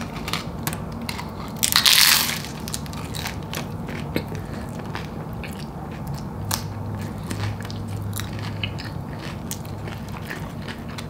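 Close-up chewing of a mouthful of tortilla-chip nachos: crisp crunching clicks throughout, with a louder burst about two seconds in.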